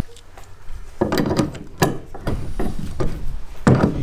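An adjustable wrench and pliers clicking and scraping on a steel bolt and locking nut as the bolt is tightened by hand through a plastic base. The clicks come irregularly, starting about a second in.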